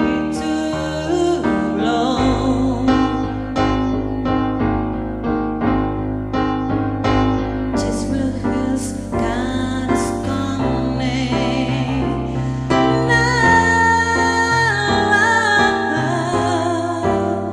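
Music: a slow song led by piano chords, with a singing voice over it and a wavering melody line in the second half.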